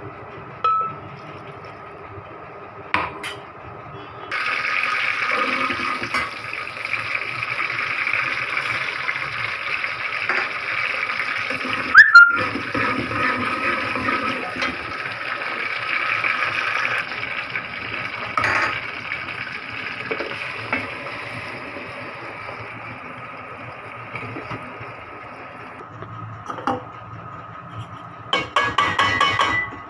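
Hot oil sizzling in a cooking pot: a steady hiss that starts suddenly a few seconds in and slowly dies down. A single sharp knock near the middle is the loudest sound. Near the end a metal ladle clinks against the pot.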